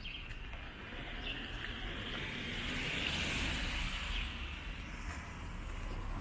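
A car driving past on a wet road: the tyre hiss on the wet surface swells to its loudest about three seconds in, then fades.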